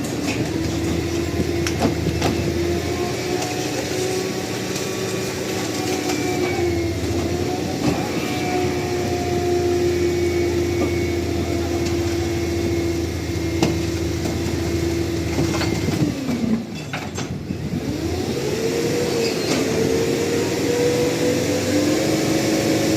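Garbage truck engine running with a steady droning note. About sixteen seconds in the pitch falls and the sound briefly drops away, then it climbs back up. A few scattered knocks are heard along the way.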